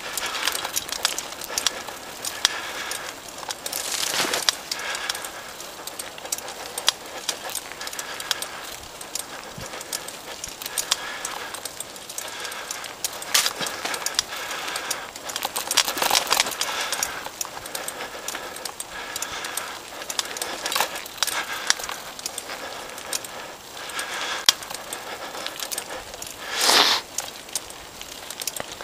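Mountain bike climbing a rocky dirt trail: tyres crunching over gravel and stones, and the bike rattling and clicking over the bumps. A louder rushing burst comes near the end.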